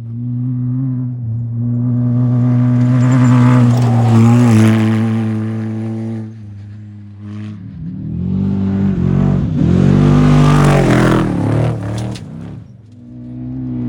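Off-road race vehicles speeding past, with engines revving. One passes about three to six seconds in, and a louder one about nine to twelve seconds in, its engine pitch dipping and rising. A steady engine hum runs underneath.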